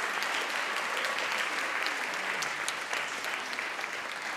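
Audience applauding, many hands clapping, the applause gradually dying down.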